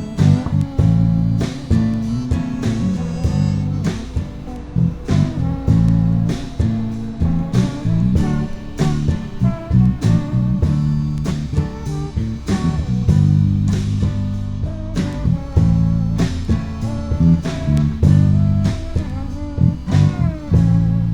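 Instrumental break of a blues-rock song played by a live band: guitar over bass and a steady drum beat, with some bending notes near the end.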